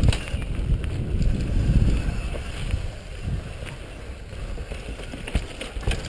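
Wind rumbling on a GoPro's microphone during a fast mountain bike descent on a dirt trail, with sharp rattles and knocks from the bike jolting over roots and bumps. The rumble is heaviest in the first two seconds and eases after that.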